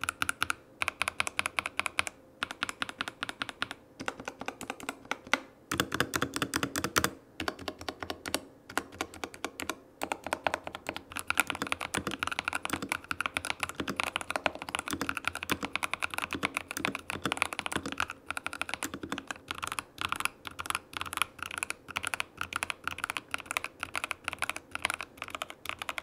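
Typing on a Tecware Phantom Plus mechanical keyboard with pre-lubed in-house linear switches: a fast, continuous run of keystrokes, broken by a few short pauses.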